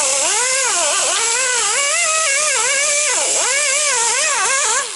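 Buffing wheel on a power grinder working a cylinder head's gasket and cam-cap surfaces, running loud with a hiss and a whine that swoops up and down again and again as the wheel is pressed on and eased off the metal. It cuts off at the end.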